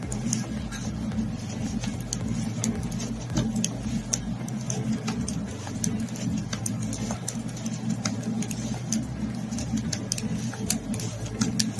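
Knitting needles clicking and tapping irregularly as stitches are purled along a row, over a steady low hum.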